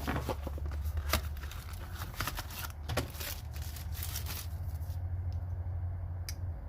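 Hand tools (wrenches and pliers) being handled: a run of sharp clicks and knocks that thins out after about four and a half seconds, over a steady low hum.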